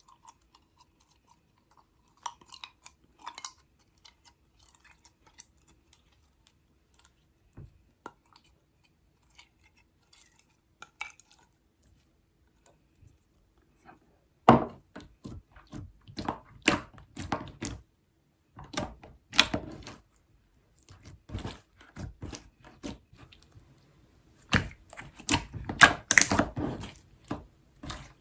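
Slime being squeezed and poked by hand, making sticky clicking and crackling sounds: only a few faint clicks at first, then dense runs of clicks from about halfway.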